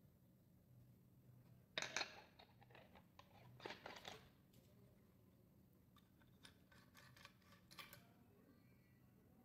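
Faint handling noises of an H827 HVLP gravity-feed spray gun being assembled: plastic and metal parts scraping and clicking as the paint cup and nozzle parts are fitted. A louder scrape about two seconds in, another around four seconds, then a run of small clicks.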